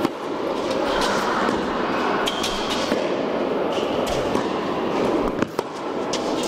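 Tennis balls struck by rackets in a rally: a sharp hit about every second or so, over a loud, steady rushing rumble.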